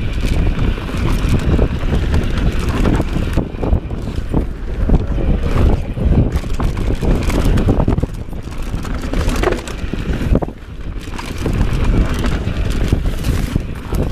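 Mountain bike descending a dirt singletrack at speed: wind buffeting the rider-mounted camera's microphone over tyre rumble on the trail, with frequent knocks and rattles from the bike over the rough ground.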